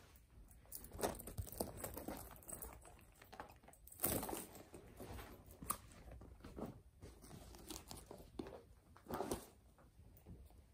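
Quiet rustling and crinkling of bags and clothing being handled, with a few soft knocks; the loudest rustles come about four seconds in and again about nine seconds in.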